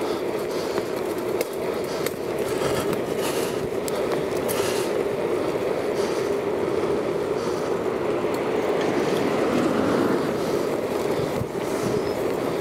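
Bicycle rolling fast on tarmac, heard from a camera mounted on the bike: a steady rush of tyre and wind noise, with a few small knocks from bumps in the road surface.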